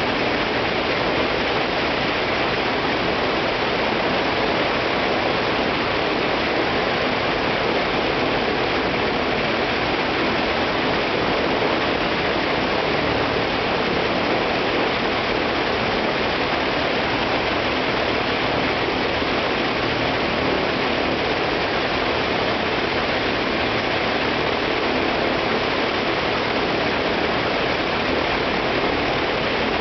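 Ilyushin Il-14T's left engine, a Shvetsov ASh-82T fourteen-cylinder twin-row radial, running steadily on a ground run with its propeller turning, heard as a loud, even rush of engine and propeller noise.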